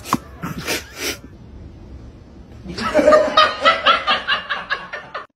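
A person laughing hard in a fast string of loud 'ha-ha' bursts, starting about two and a half seconds in. Before it come a few short, sharp noises.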